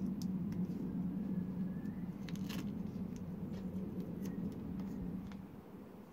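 Masking tape being pulled off the roll and pressed along a headlight's edge: scattered sticky clicks and crackles, one sharper crackle about two and a half seconds in. A steady low hum runs underneath and fades out near the end.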